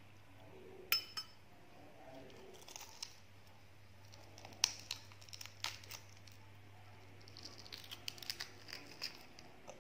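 Fingers cracking and picking the shell off a cooked balut (fertilised duck egg): sharp shell clicks and small crackles. The loudest snaps come about a second in and near the middle, with a run of small crackles near the end.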